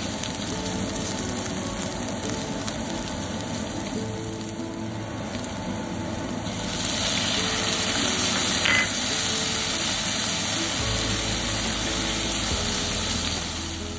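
Chopped onions sizzling in hot oil in a frying pan, stirred with a spatula; the sizzle gets louder and brighter about six seconds in as chopped tomatoes hit the pan. Soft background music plays under it.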